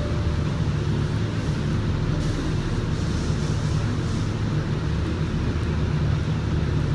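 Steady low drone of a paint spray booth's ventilation running, with a higher hiss of air rising for about two seconds near the middle.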